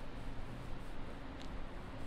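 City background noise: a steady low rumble of distant traffic with a faint hum, and one brief high chirp about one and a half seconds in.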